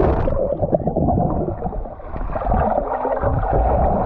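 Pool water sloshing and gurgling around a GoPro camera, heard as a dull, muffled churn with almost nothing in the treble. It dips briefly about halfway through.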